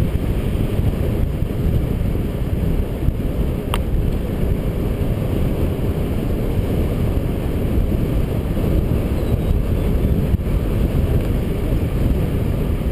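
Wind buffeting a bike-mounted GoPro Hero's microphone at riding speed: a steady, loud low rumble. One short tick about four seconds in.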